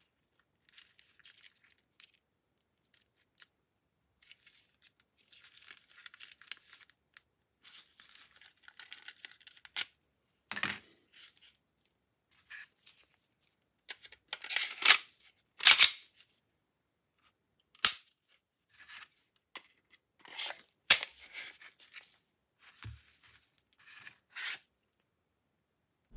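Handling sounds of a Glock 17C pistol being reassembled by gloved hands: rustling and scattered clicks of polymer and steel parts. The loudest sharp clicks come a little past halfway, as the slide is fitted back onto the frame.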